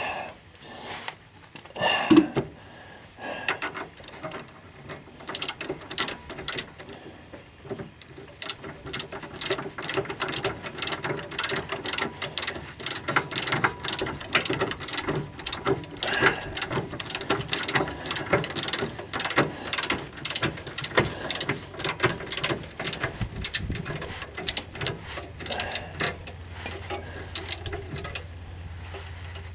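Hand ratchet wrench clicking in quick back-and-forth strokes, running a bolt down, after a louder metallic knock about two seconds in.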